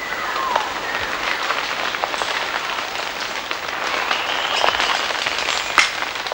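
Leaves and branches rustling and crackling as black-handed spider monkeys clamber through a mango tree, with many small snaps of twigs and a few faint high drawn-out calls.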